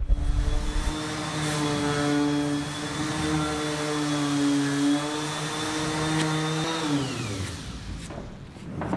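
A small electric motor, likely a power tool, runs at a steady speed, then is switched off about seven seconds in and spins down, its pitch falling away.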